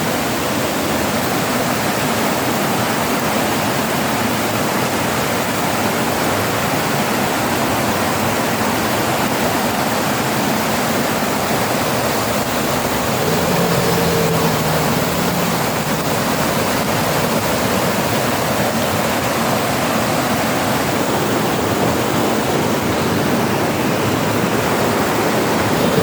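River water rushing steadily, with a faint low hum for a couple of seconds about halfway through.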